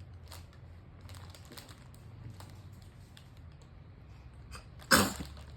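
A baby sneezes once, a short sharp burst about five seconds in, after several seconds of light clicking and crinkling from a packet of baby wipes being handled.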